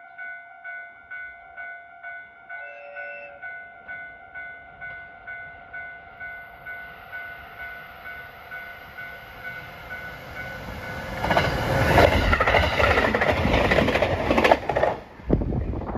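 A warning bell dings steadily, about twice a second, while an approaching train's rail hum grows. About eleven seconds in the train passes through the station at speed, loud, with wheel clatter, and the noise cuts off abruptly near the end as the last car goes by.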